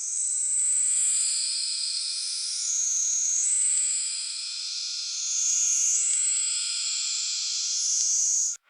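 Synthesized cinematic sound effect for a true-crime evidence reveal: a layer of high, shrill shimmering tones that steps between pitches every second or two. It cuts off suddenly near the end.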